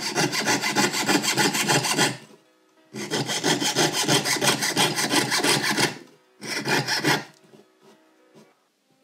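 Jeweller's piercing saw cutting through silver sheet held on a wooden bench peg: quick, even rasping strokes in three runs, the first two long and the third brief, then the sawing stops.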